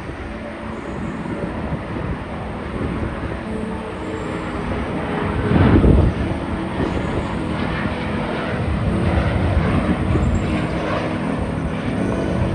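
Airliner engines running loudly with a steady noise, swelling to a peak about six seconds in.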